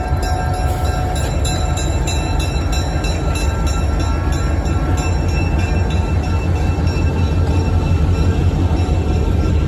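A train running at the station: a steady low rumble with faint steady tones above it.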